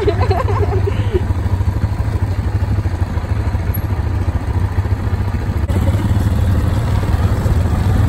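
Quad bike (ATV) engine running steadily while riding over a dirt track, a deep continuous drone.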